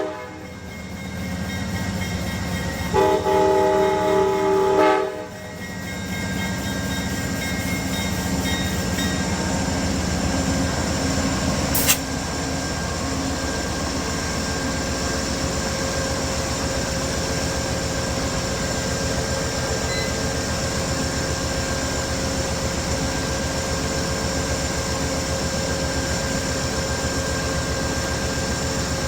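A locomotive horn chord cuts off right at the start, and a second blast of about two seconds sounds about three seconds in. After it comes the steady running noise of a train, with a single sharp click about twelve seconds in.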